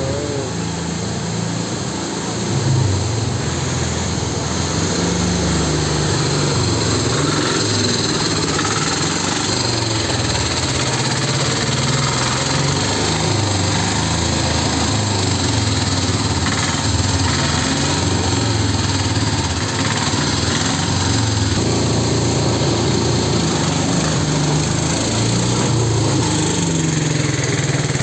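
A small engine running steadily throughout, its pitch stepping up and down now and then.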